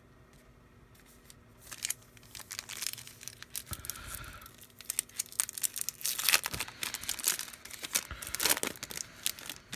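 The wrapper of a trading card pack being torn open and crinkled: a quick run of crackling rustles starting about two seconds in.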